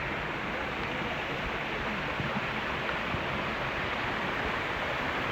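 Rushing water of a stream or brook: a steady, even hiss with no break.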